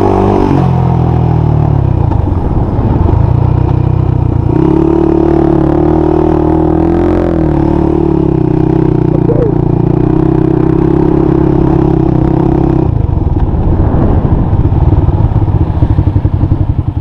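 Honda 400EX sport quad's air-cooled single-cylinder four-stroke engine running while ridden. The pitch drops in the first second, holds steady from about four to thirteen seconds in, then falls to a lower, unevenly pulsing beat.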